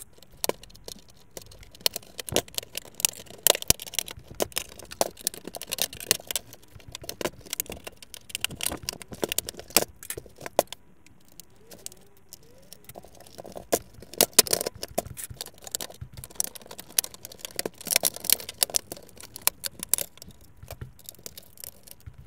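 Plastic housing of an HP inkjet printer being worked apart by hand: irregular clicks, knocks and scrapes of plastic, with a quieter spell about halfway through.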